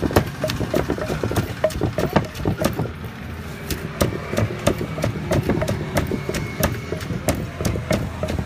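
Rapid, irregular sharp knocks, a few a second, over a steady low engine hum.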